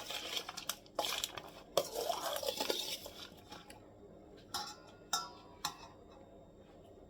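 A utensil stirring and scraping raw shrimp and dry seasoning in a bowl, then three short ringing clinks against the bowl about halfway through.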